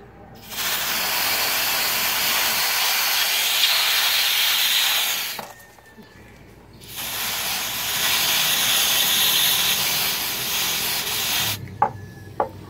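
Butane gas spraying from a canister nozzle held against a small bag of water to freeze it: two long, even hisses of about five seconds each with a short pause between them, followed by a few small clicks near the end.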